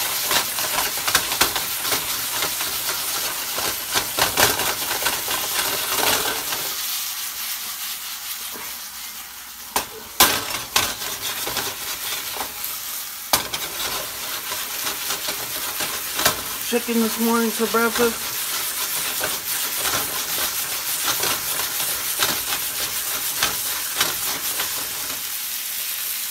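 Chicken breast and chopped kale sizzling in oil in a frying pan, a steady hiss with scattered sharp pops and knocks, the loudest about ten seconds in.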